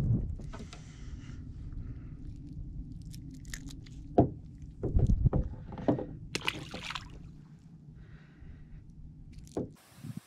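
Handling noise at the side of a small fishing boat: a steady low rumble with a run of sharp knocks and clatters in the middle, as a small fish is unhooked and released over the side. Near the end it drops suddenly to a quieter hiss.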